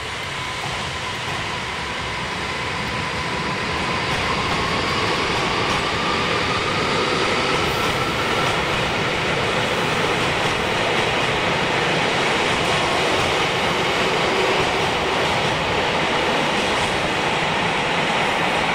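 JR Hokkaido 733 series 3000 subseries electric multiple unit pulling out and accelerating past: a thin motor whine rises slowly in pitch over the first several seconds above the growing rumble of wheels on rail, which grows louder and then stays steady.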